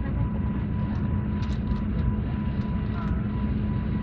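Steady airliner cabin noise: a constant rumble from the engines and rushing air, with a low steady hum.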